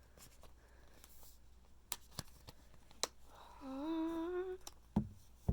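A person humming one short note that rises slightly for about a second, between a few light clicks and two sharper thumps near the end from handling a phone case.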